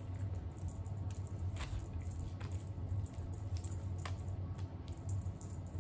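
A few light clicks and rattles of a plastic cat wand toy being handled and its two parts fitted together, over a steady low hum.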